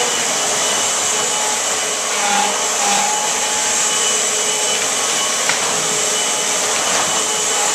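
Upright vacuum cleaner running steadily as it is pushed over a hardwood floor: an even motor-and-airflow rush with a thin, steady high whine.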